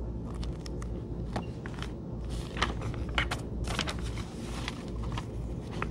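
Pages of a large paper book rustling and crinkling as the book is lowered and its pages are turned, with scattered short clicks that are busiest in the middle, over a steady low hum.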